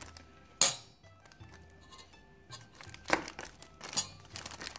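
Metal spoon pressing cooked rice flat into a plastic-lined tin, with sharp knocks of the spoon against the tin: the loudest about half a second in, then two more near the end. Plastic lining crinkles, and faint background music plays.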